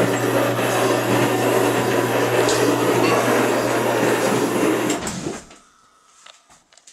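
Electric motor of an Arjo Freedom bath running with a loud, steady hum, cutting off about five seconds in, followed by a few faint clicks. The relays in its control box are switching on by themselves, so the unit cycles with nobody operating it.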